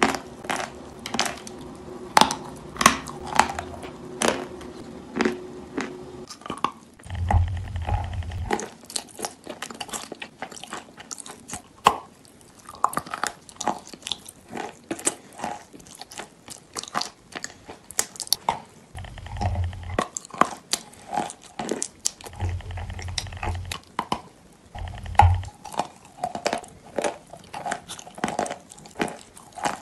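Close-up mouth sounds of eating paste-coated sweets: crunchy bites and chewing, with many sharp clicks and smacks. A few brief low rumbles come in near the start of the second clip and again three times later on.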